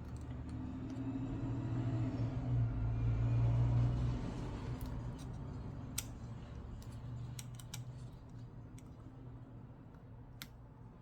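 A few small, sharp clicks of an iPad 2's LCD panel and connectors being handled and fitted into the frame. Under them, a low rumble swells over the first few seconds and then fades.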